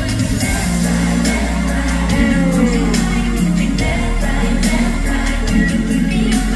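Live pop music through arena loudspeakers: a heavy bass and steady beat with a women's group singing over it.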